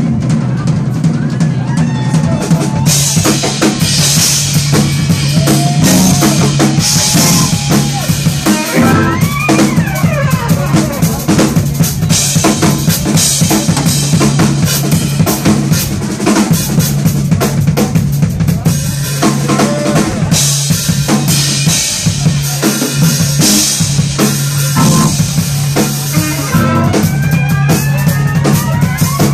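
A live funk-jazz band playing a groove: a drum kit with busy cymbals and snare over a steady low bass line, with electric guitar, saxophone and trumpet. The cymbals come up louder about three seconds in.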